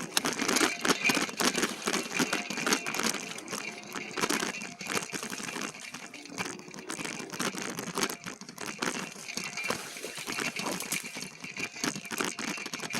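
Continuous rustling and crackling of leaves, twigs and brush against the e-bike and rider as it pushes along a narrow, cramped trail, with irregular snaps and clicks throughout.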